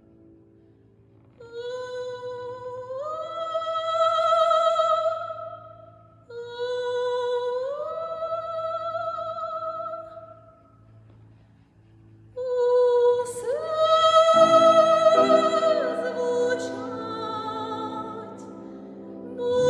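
Classical soprano singing an art song with vibrato to grand piano accompaniment, in three phrases that each begin with an upward leap. The piano grows fuller under the last, loudest phrase.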